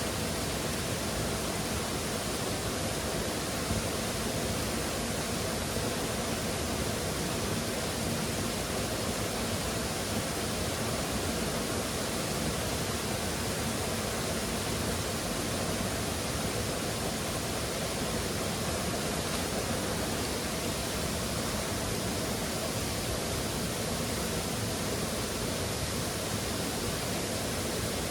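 A waterfall pouring: a steady, even rush of falling water, with no change in level.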